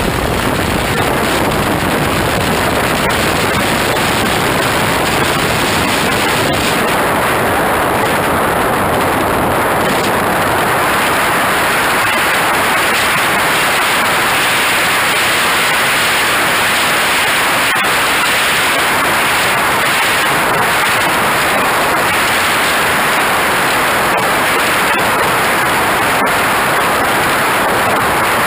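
Steady, loud rushing noise of a radio-control jet's engine and air streaming past a microphone mounted on the jet's wing, through the takeoff run and climb. The rush turns brighter and higher about ten seconds in as the jet gets airborne.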